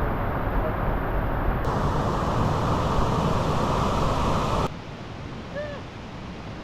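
Steady rushing noise with a heavy low rumble and no clear tones, dropping abruptly quieter about three-quarters of the way through.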